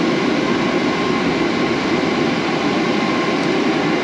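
Steady rushing wind noise over the camera's microphone, unbroken and even.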